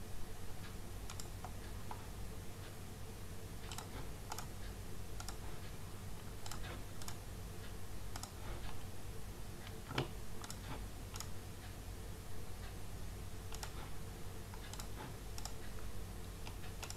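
Irregular clicks of a computer mouse, about one a second, over a steady low electrical hum.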